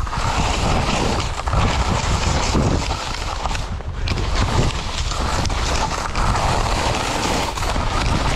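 Wind buffeting the microphone during a fast ski descent, with skis hissing and scraping over the snow; the hiss swells and eases with each turn.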